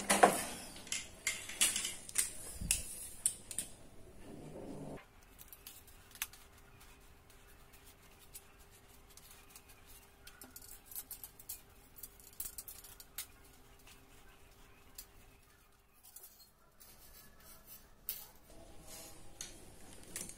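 Maguro Stoner telescopic fiberglass fishing rod being pulled out section by section by hand: sharp clicks and light rattles of the sections and line guides, loudest and busiest in the first four seconds, then only sparse faint ticks.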